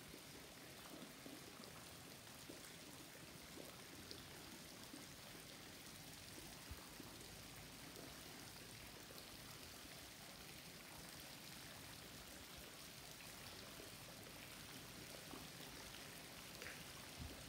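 Faint, steady splash and hiss of water falling into a pond.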